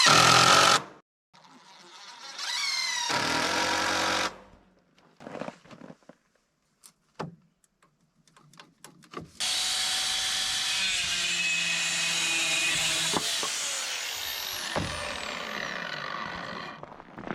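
Power tool working wood: a short loud run whose pitch rises as the motor spins up and ends about a second in, and a second run a couple of seconds later. Then come a few light clicks and knocks, and then a longer steady run of about eight seconds.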